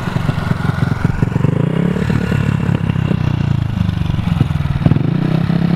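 Mini dirt bike's small single-cylinder engine running at idle, revving up briefly about a second and a half in and settling back.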